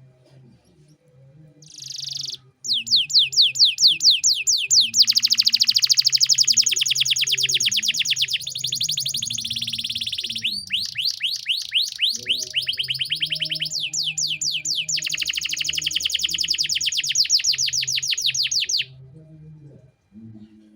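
Domestic canary singing long, rapid trills of repeated sweeping notes, changing pace and phrase several times. It starts about two seconds in and stops a couple of seconds before the end, over soft background music.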